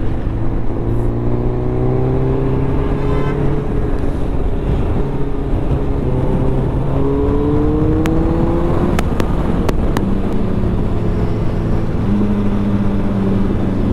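Suzuki Hayabusa's inline-four engine heard from the rider's seat, rising in pitch twice as the bike accelerates, over a steady rush of wind.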